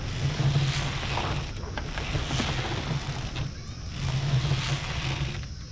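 Tall bamboo swing going back and forth, a rushing swell about every two seconds as it passes, over wind rumbling on the microphone.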